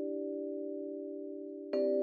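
A bell-like chime with a few steady ringing tones, slowly fading, then struck again near the end. It works as a sound-design sting marking a scene change in the audio story.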